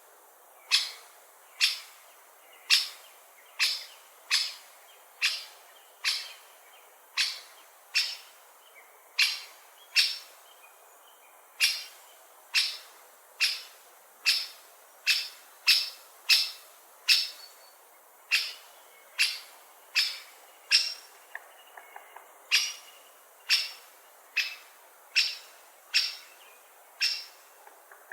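Great spotted woodpecker calling: a string of short, sharp, high single 'kik' notes, repeated roughly once a second with uneven spacing.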